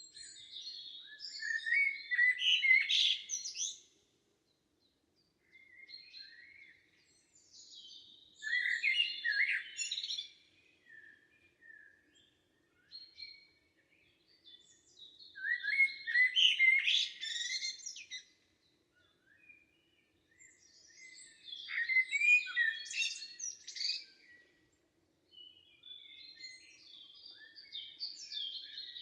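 Songbirds singing in woodland: bursts of rapid, twittering notes lasting two to three seconds, coming back every five or six seconds with quiet gaps in between.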